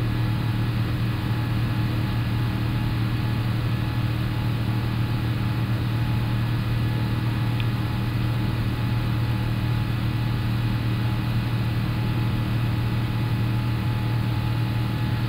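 Steady flight-deck noise of an Airbus A350-1000 in the climb after takeoff: a constant low hum under an even rush of air, with one faint click about halfway through.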